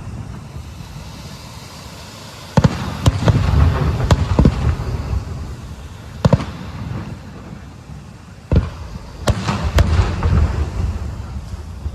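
Aerial fireworks bursting: after a quieter opening, sharp bangs begin about two and a half seconds in, each followed by low rumbling and crackle, with a quick cluster of bangs near the end.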